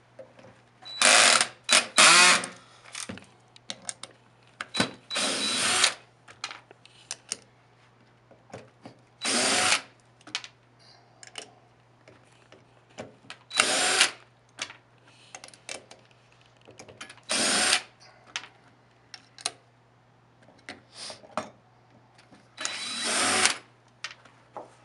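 Cordless screw gun fitted with an 8mm socket, spinning off the nuts that hold a golf trolley's wheel to its motor: about six short runs of a second or so each, with small clicks and knocks of the nuts and parts being handled between them.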